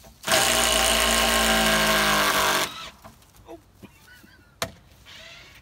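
Power drill running at a steady speed for about two and a half seconds, then stopping, likely backing screws out of a temporary support. A single sharp knock follows near the end.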